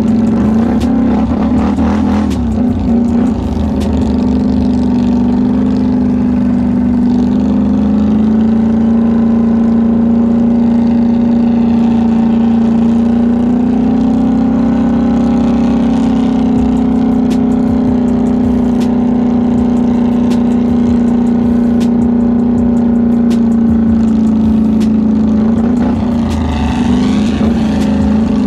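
Polaris Sportsman 850 High Lifter ATV's twin-cylinder engine running under way at a fairly steady speed, its pitch drifting a little up and down with the throttle.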